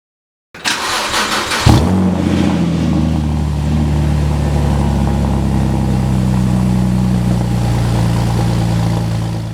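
Porsche 987 Cayman's flat-six engine starting: about a second of cranking, a loud flare as it catches, then a steady idle.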